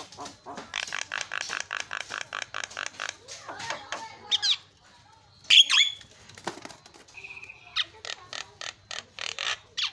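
Javan myna calling: a fast chattering run of about eight notes a second, then a few loud sliding squawks and a short whistle, and another fast chattering run near the end.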